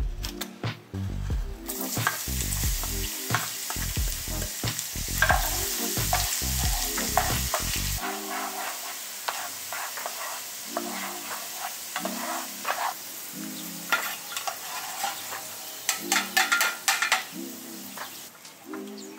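A cleaver chopping garlic on a wooden board for the first second or two, then minced garlic sizzling as it fries in hot oil in a small pan while being stirred, on its way to golden. The sizzle is strongest for the first several seconds and eases after about eight seconds. Background music plays underneath.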